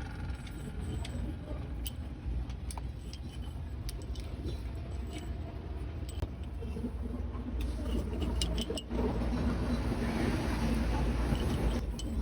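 Scattered metallic clinks of hand tools and loose bolts on a diesel engine's cylinder head as it is being unbolted, with a cluster of clinks about two-thirds of the way through, over a steady low background rumble.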